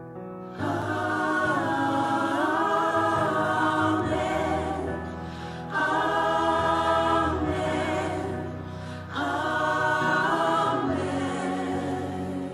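Gospel choir singing in full harmony, in three sustained phrases that enter strongly about half a second in, near six seconds and around nine seconds.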